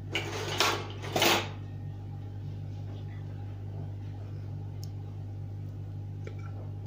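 A utensil scraping against a serving dish and plate three times in quick succession in the first second and a half, over a steady low electrical hum.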